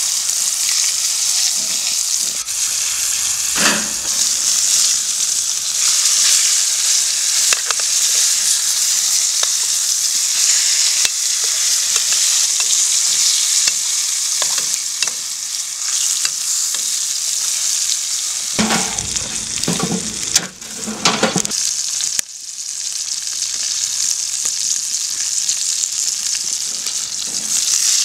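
Flour-dredged pike fillets frying in oil in a stainless steel pan: a steady sizzle, with a few short, louder sounds about two-thirds of the way through.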